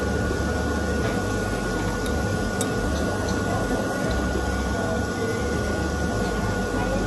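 Steady restaurant background noise: a constant hiss and low hum with a thin, steady whine, and a few faint clicks, the clearest about two and a half seconds in.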